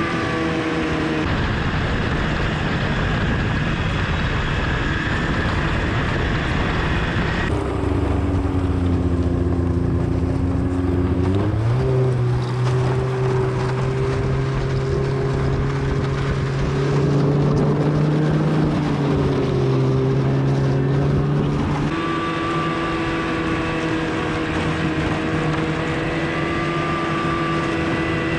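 Snowmobile engine running steadily at travelling speed. For a stretch in the middle the sound turns duller, and the engine note climbs a step about halfway through that stretch.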